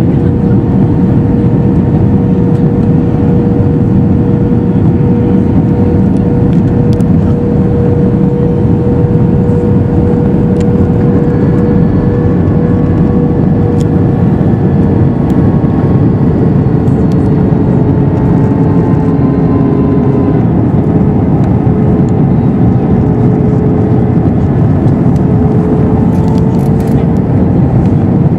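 Steady roar of an Airbus A321-212 in flight, heard inside the cabin at a window seat, with the hum of its CFM56 engines. The engine tone dips a little in pitch past the middle and comes back up near the end, a small change in thrust.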